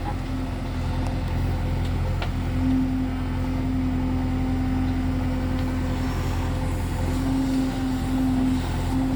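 Heavy diesel machinery engine running steadily, a backhoe or tractor engine sound: a low drone with a higher steady hum that drops out and comes back several times.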